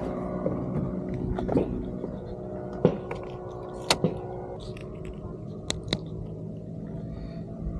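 Footsteps on a construction site, with scattered sharp crunches and clicks over a steady low hum.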